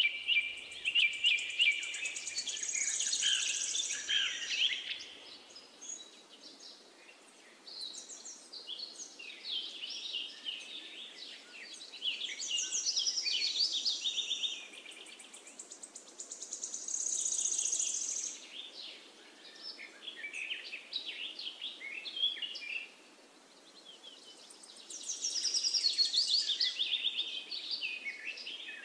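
Birds singing: bursts of chirps and fast trills every few seconds, loudest in the first few seconds, in the middle and near the end, over a faint steady hiss.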